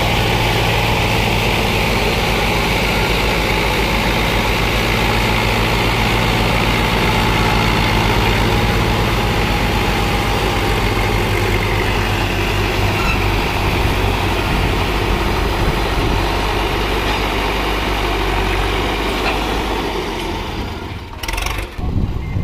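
Sonalika 750 DI tractor's diesel engine running steadily under load while pulling a fully loaded soil trolley through loose sand. Near the end the engine sound falls away, broken by one short knock.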